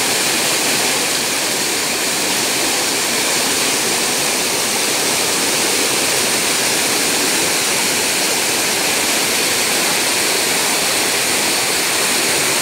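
Waterfall: white water pouring down a narrow rocky chute, a steady loud rush of water.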